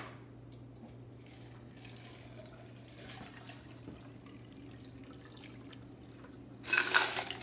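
Cranberry martini being strained from a stainless steel cocktail shaker through a Hawthorne strainer into a martini glass: a faint, steady trickle of liquid. A brief, loud rattle comes near the end.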